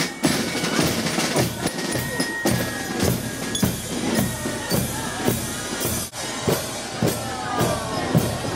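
Marching drum corps playing a march beat on snare drums, bass drum and cymbals, with sharp hits at about two a second.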